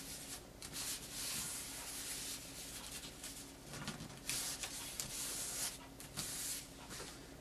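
A sheet of origami paper rustling and rubbing against a tabletop as hands fold it and press its creases flat, in irregular scratchy swishes with a few louder strokes.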